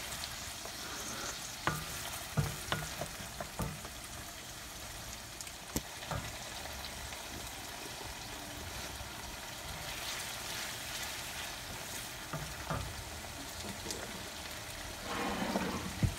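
Chopped onion sizzling steadily in hot oil in a wok-style pan as it is sautéed. A wooden spoon stirs and knocks against the pan several times in the first few seconds, with a brief clatter of handling near the end.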